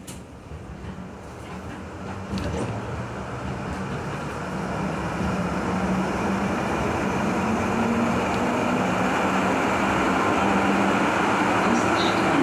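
Düwag GT8SU tram pulling away and accelerating: traction motor hum and wheel-on-rail running noise grow steadily louder.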